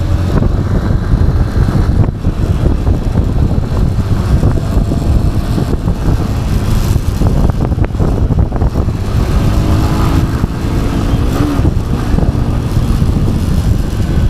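Honda X-Blade single-cylinder motorcycle being ridden at a steady pace, engine running under a dense, steady low rumble.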